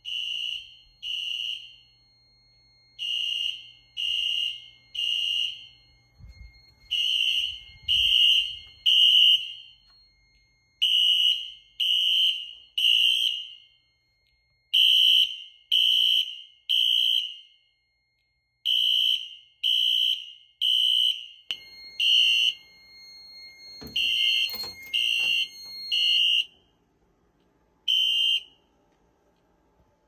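Wheelock LED3 horn strobes sounding in sync in the temporal-3 evacuation pattern: loud high-pitched horn beeps in groups of three, each group followed by a pause. The pattern breaks up in the last third, and the horns stop after a last single beep shortly before the end.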